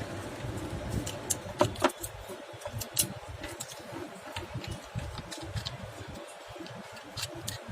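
A solder paste container and its packaging being handled and opened by hand: scattered sharp clicks and taps over low, uneven handling noise.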